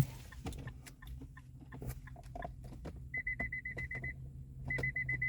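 Fast electronic beeping at one steady high pitch, in a run of about a second that stops, then starts again near the end. Scattered light clicks and taps run alongside it.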